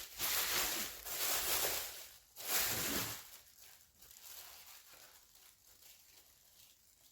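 Rustling of grocery packaging as it is handled, in three loud bursts over the first three seconds, then fainter handling.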